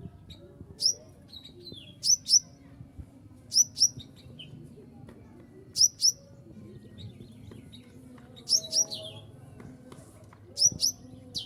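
Sunbird (konin, the 'kolibri ninja') calling: short, sharp, high chirps, mostly in quick pairs, repeated about every one to two seconds, with a few softer lower notes between.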